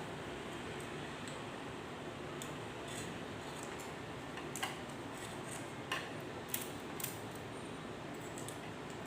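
A few light metallic clicks and clinks, scattered in the second half, over a steady hiss: small metal parts of a K Clover 815 manual typewriter being handled during cleaning.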